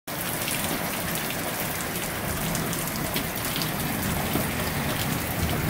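Rain falling steadily outside, a continuous hiss with the quick ticking patter of individual drops on surfaces.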